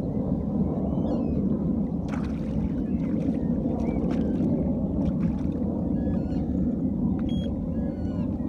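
Steady low rumble of wind on the microphone, with faint short high chirps and a few small clicks over it.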